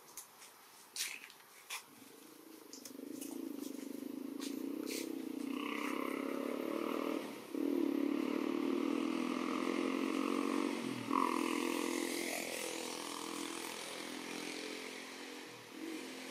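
A motor vehicle's engine running steadily, swelling in about two seconds in and holding with a couple of brief dips. A few sharp clicks come before it.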